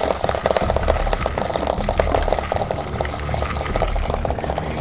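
Paintballs rattling and clattering against one another and the plastic shell of an electronic paintball loader as it is handled and tipped, a dense run of small clicks.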